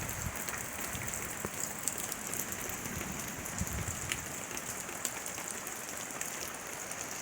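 Heavy rain falling: a steady hiss with many small, sharp drop impacts throughout.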